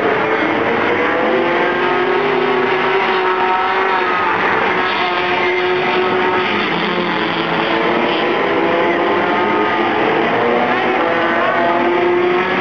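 Several race car engines running laps on a short oval track. The pitch of each rises and falls as the cars go around, and the sound is loud and continuous.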